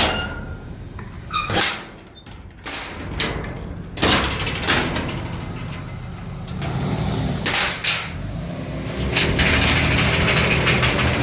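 A motor running with a steady low rumble, broken by several sharp knocks or bangs.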